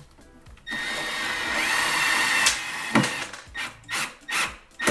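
Milwaukee M12 cordless screwdriver driving a screw into a closet rod socket: a steady motor whine for about two seconds that cuts off sharply, followed by several short sharp clicks.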